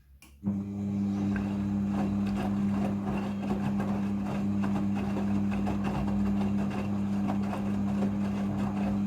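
Midea front-loading washing machine in its rinse cycle: a steady low hum starts suddenly about half a second in and holds, with water rushing and crackling over it.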